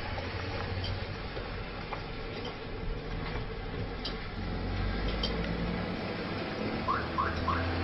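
Steady hiss and low rumble of distant city traffic, with a few faint clicks and three quick rising chirps near the end.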